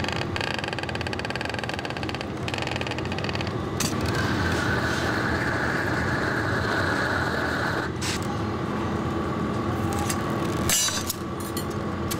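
Glassblowing workshop noise: a steady roar of a gas torch and furnace, with a fine rapid rattle in the first few seconds as the blowpipe is rolled on the bench, and a steadier hiss from about four to eight seconds in.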